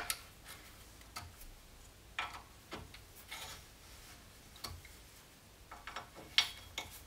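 Faint, irregular light clicks and taps from an Allen key being worked on the set screw that holds the toothed table rack of a Scheppach DP18 Vario bench drill press, tightening the loose rack.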